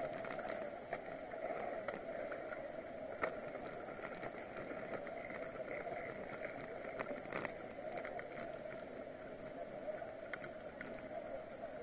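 Bicycle rolling along asphalt: a steady hum of tyres and drivetrain with scattered light clicks and rattles.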